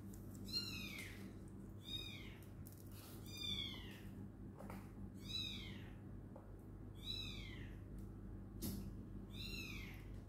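An animal's short high-pitched calls, each falling in pitch, repeated about every one and a half to two seconds, over a faint steady hum.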